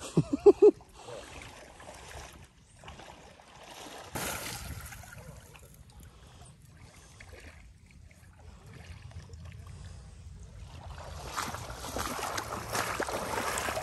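Moving river water with splashing, which grows louder and more agitated near the end. There are a few short, loud voice calls in the first second.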